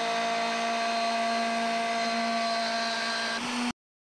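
Bosch 1617 router motor on a DIY CNC router running at speed, a steady whine with several pitches held at once. It cuts off abruptly near the end.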